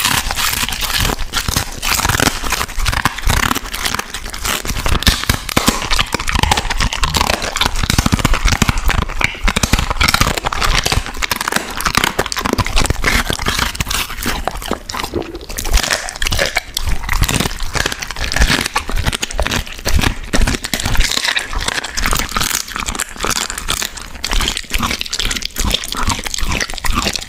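Border collie chewing and crunching raw food, a dense, unbroken run of crackling bites and chomps.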